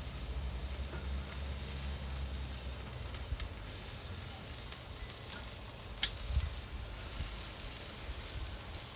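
Spatchcock chicken sizzling steadily on a grill, with a couple of light clicks and a soft thump about six seconds in.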